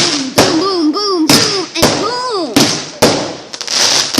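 Fireworks going off in quick succession: about seven sharp bangs in four seconds, each trailing off in a hiss. Through the first half, shrill pitched sounds rise and fall between the bangs.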